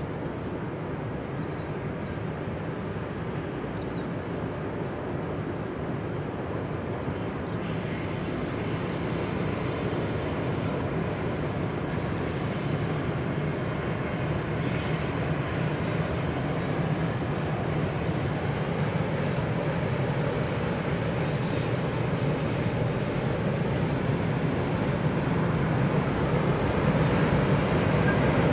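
Diesel freight locomotives hauling a long container train, a steady low engine sound growing gradually louder as the train approaches.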